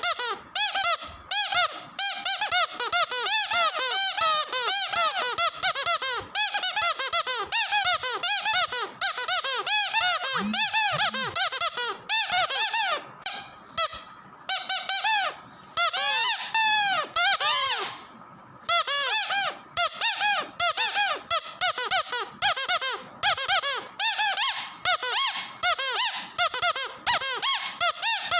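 Squeaky dog toy squeezed rapidly over and over, a fast run of short, high squeaks, several a second. The pace slows in the middle to a handful of longer squeaks, then picks up again.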